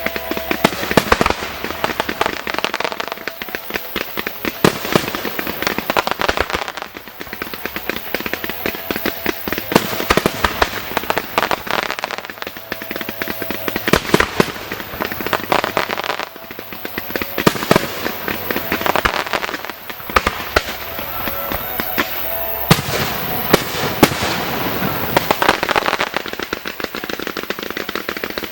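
Fireworks display: a rapid, dense barrage of aerial shell bursts and crackling, with repeated sharp bangs.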